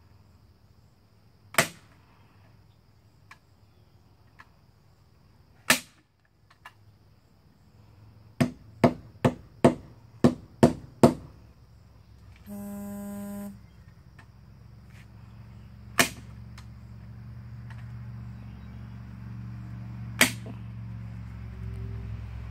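Sharp clacks of a hand tool fastening wooden lattice skirting: two single clacks, then a quick run of about eight at roughly three a second, then two more single clacks. A short buzzing tone about midway, and a low hum that grows louder through the second half.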